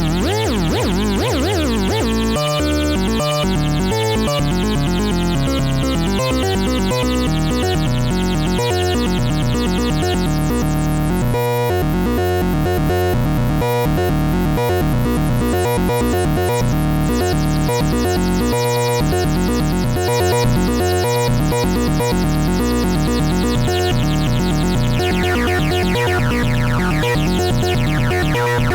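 Dreadbox Hades analog bass synthesizer playing a fast, repeating sequence of low notes. Its tone sweeps brighter and darker at the start and again near the end, and it turns duller for several seconds in the middle.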